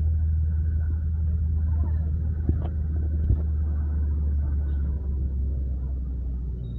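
Steady low rumble of a car's engine and tyres, heard from inside the cabin while driving, with two light knocks a few seconds in.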